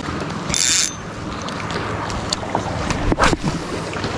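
Steady wind noise on the microphone over water at the shoreline, with a short high hiss about half a second in.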